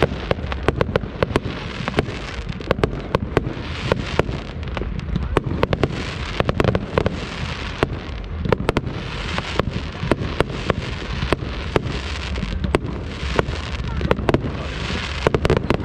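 Fireworks display: a rapid, irregular run of sharp bangs and crackles, several a second, over a steady low rumble.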